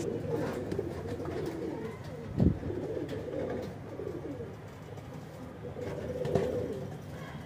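Domestic fancy pigeons cooing over and over in a wire-mesh loft cage, with a single short thump about two and a half seconds in.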